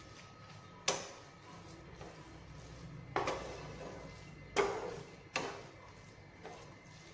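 A spatula stirring thick, grated bottle gourd halva in a nonstick kadhai. It knocks and scrapes sharply against the pan four times, at irregular intervals about a second or two apart.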